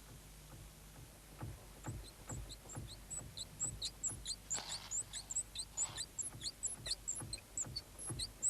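Rapid high-pitched squeaking, short chirps about three a second, starting about two seconds in, mixed with faint clicks and tapping.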